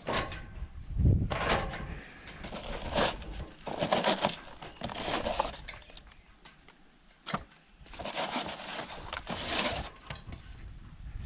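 Aluminium extension ladder being climbed: irregular clanks and clinks of gloved hands and boots on the metal rungs, with rustling between them and a heavier thump about a second in.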